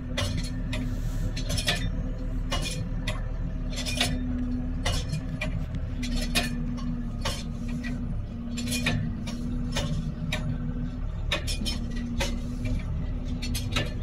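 New Holland TM140 tractor engine running steadily, heard from inside the cab, with frequent irregular metallic clinks and rattles from the umbilical hose reel and its fittings as it works.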